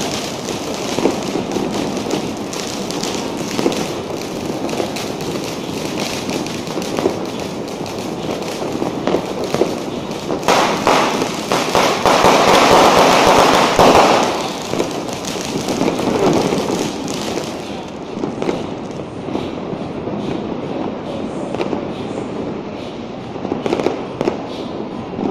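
Street firecrackers and fireworks going off all around in a dense, continuous crackle of rapid pops. The crackle swells louder for a few seconds about halfway through.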